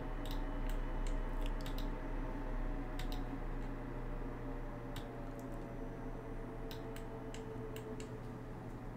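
Scattered clicks of a computer mouse and keyboard over a steady low hum.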